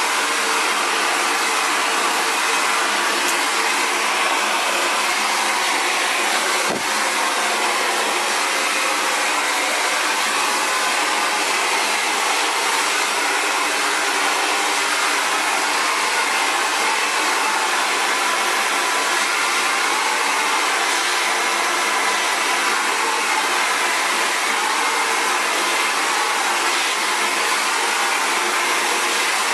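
Xtava Allure 2200-watt ionic ceramic hair dryer running steadily, a loud, even rush of blown air that does not change speed, with one brief click about seven seconds in.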